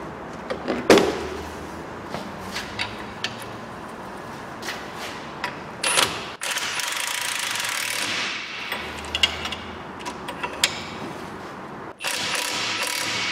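Air impact wrench run in two bursts, about six seconds in and again near the end, spinning up the nut on a new track control arm's ball-joint pinch bolt. Scattered clinks of metal spanners on the bolt fall in between.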